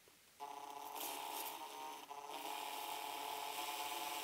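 Electric drill starting about half a second in and running at a steady pitch, its bit spotting the position of a mounting hole through a chassis-mount power resistor's tab.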